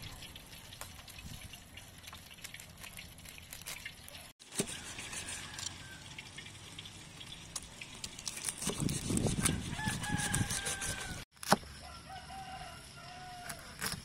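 A large knife crunching and clicking through crispy pork belly crackling on a wooden chopping board, with chickens clucking and crowing several times.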